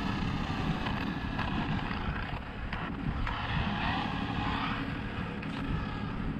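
Wind rumbling on the microphone while a twin-motor Arrma Infraction RC car drives off along the road. Its motors and tyres make a faint whir that swells about three and a half seconds in.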